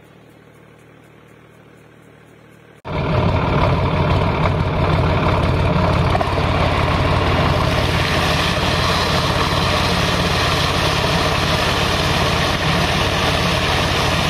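Sonalika tractor's diesel engine running steadily under load, driving a PTO-operated high-head water pump, with water rushing out of the discharge in a powerful jet. It starts abruptly about three seconds in, after a faint steady hiss.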